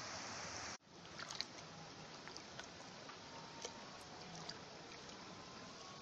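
Shallow rocky river flowing: a steady rush of water that cuts off abruptly about a second in, followed by a quieter close-up of water lapping and trickling around stones, with small scattered splashes.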